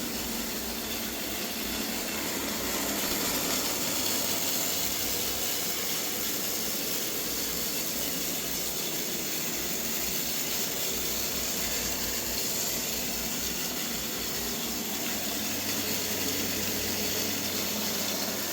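Robot vacuum running steadily: an unbroken hiss from its suction fan and brushes.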